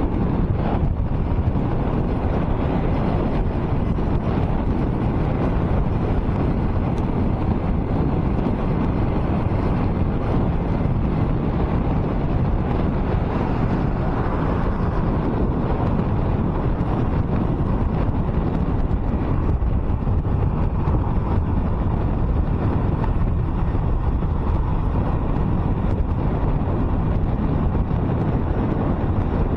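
Steady wind rush and road noise from a car driving at highway speed, with wind buffeting the microphone.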